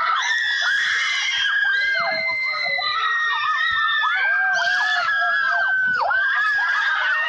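Many girls screaming and shouting at once in high, drawn-out cries, their voices overlapping without a break: a school crowd cheering on a cheerleading squad.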